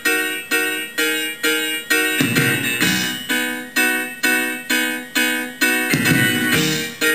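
Music: a piano or electric piano striking the same chord over and over, evenly, about two chords a second.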